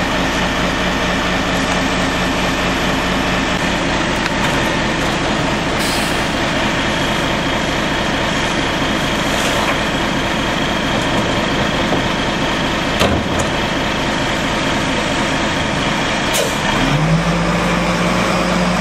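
Rear-loader garbage truck's diesel engine running steadily at idle, with a couple of sharp knocks about two-thirds of the way through; near the end the engine revs up and holds a higher note.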